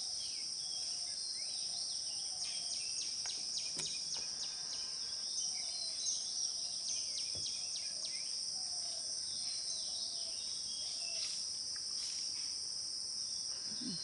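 Steady high-pitched drone of insects, a forest cricket or cicada chorus, with short high bird chirps scattered through it and a soft lower call repeating about once a second.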